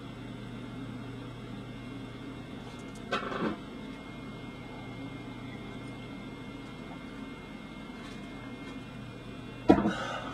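Steady low electrical hum of room tone, with a short noise about three seconds in and a sharp knock near the end, the loudest moment.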